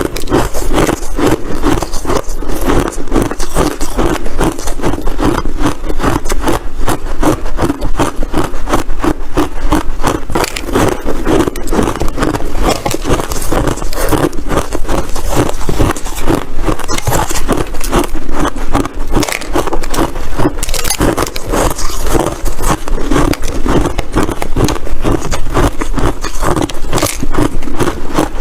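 Ice crunching close to the microphone: a dense, unbroken run of sharp crackling crunches, many per second.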